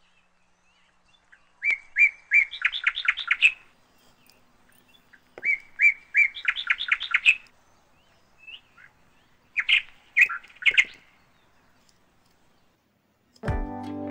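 A songbird singing: twice a phrase of a few clear notes running into a quick series of notes, then a few shorter calls. Acoustic guitar music starts near the end.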